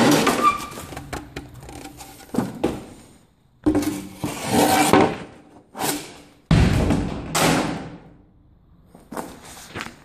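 Footsteps and movement over loose debris and boards: a series of loud, noisy thumps and scuffs with short gaps between them.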